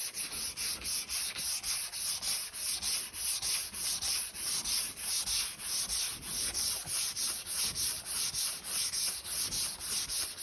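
Sandpaper on a hand-held sanding block being rubbed back and forth over epoxy primer on a car body panel, in steady even strokes at about four a second.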